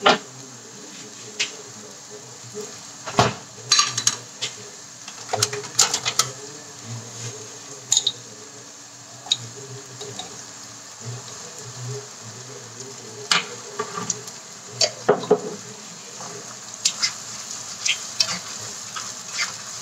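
Blended chilli and shallot spice paste sizzling steadily as it is sautéed in a non-stick wok. Scattered sharp clicks and scrapes come from a plastic slotted spatula against the pan and from a jar being handled.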